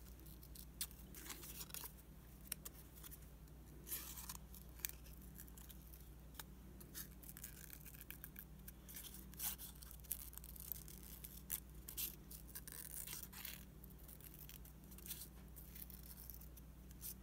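Small craft scissors snipping paper in short, irregular cuts while cutting a small heart shape out of a sheet, faint throughout.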